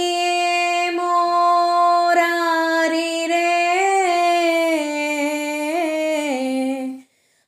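A woman singing a Gujarati Swaminarayan prabhatiyu (devotional morning hymn) with no accompaniment, drawing one syllable out into a long held note with small turns, stepping down in pitch in the second half and stopping about seven seconds in.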